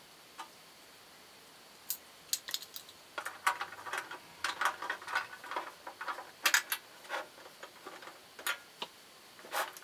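Plastic foot of an electric panel heater being handled and fitted against the heater's body: an irregular run of light clicks, taps and plastic knocks, thickest in the middle and loudest around six and a half seconds in.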